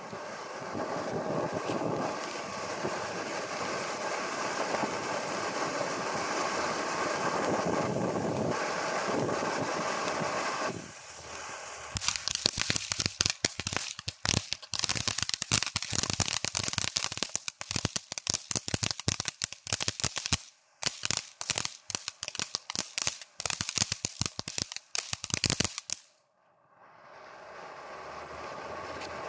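Firework fountain spraying with a steady hiss for about ten seconds, then a dense run of rapid crackling pops that stops suddenly, with one short break in the middle. Near the end a steady rushing noise fades in.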